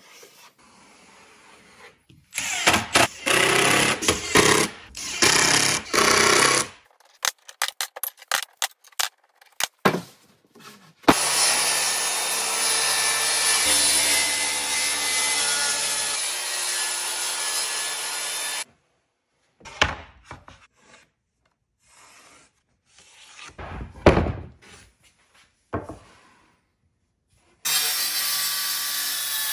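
A run of woodworking shop sounds in quick cuts: loud bursts of a power tool, scattered knocks and clicks, and a long steady stretch of a power tool at work in wood. Near the end a Makita circular saw starts and runs, cutting a board.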